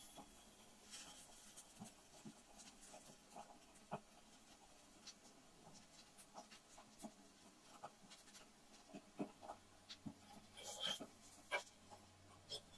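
Faint scraping and light clicks of a tiny metal spatula against a miniature frying pan as a small tortilla is slid around, lifted and flipped, with a few sharper clicks about eleven seconds in.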